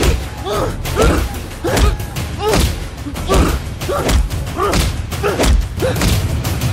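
A fight at close quarters: a steady run of thuds from blows, about one a second, each with a man's short grunt or cry.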